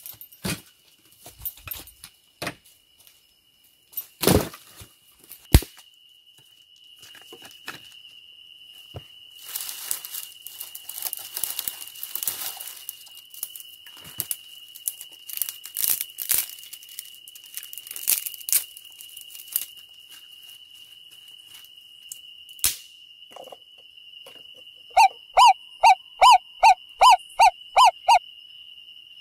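Firewood being handled: pieces of wood knock together sharply twice, then rustle and crackle as the pile is shifted, over a steady high insect buzz. Near the end, an animal gives a quick run of about nine loud, evenly spaced calls.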